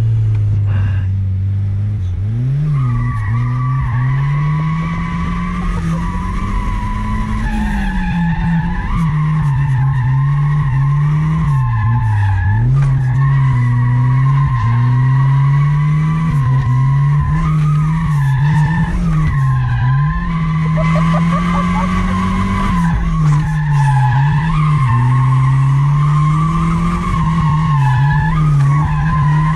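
Turbocharged Chevette drifting, its tyres squealing almost without a break while the engine revs rise and fall over and over with the throttle. The squeal comes in about three seconds in, after a short spell of steady engine note.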